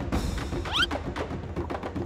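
Background music with a steady knocking percussion beat, and a short rising whistle-like sound a little under a second in.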